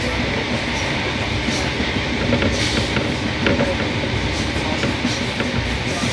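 Passenger train running at speed, heard from aboard: a steady rumble of wheels on the rails with a few sharp clicks scattered through it.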